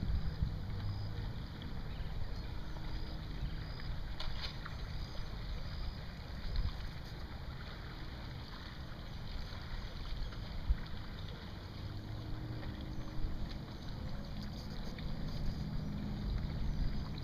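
Kayak race on a river: water and paddle sounds from a racing kayak under a steady low rumble.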